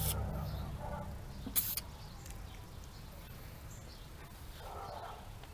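Two short hisses from a spray can of Liquid Wrench lubricating oil being sprayed into a car's fuel-door hinge, about a second and a half apart. Underneath, a low vehicle hum fades away during the first second.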